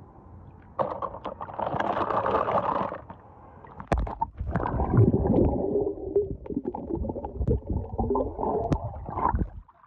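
Lake water splashing and sloshing, then muffled gurgling and rumbling heard with the microphone underwater, which cuts off suddenly just before the end.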